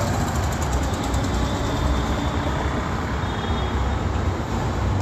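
Steady rumble of road traffic on a main road.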